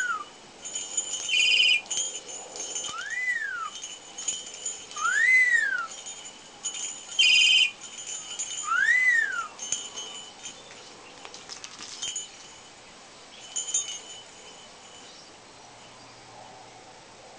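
A whistled back-and-forth between a rainbow lorikeet and a man: clear whistles that rise and fall in pitch, each under a second, alternating with two short shrill calls, then a few fainter chirps.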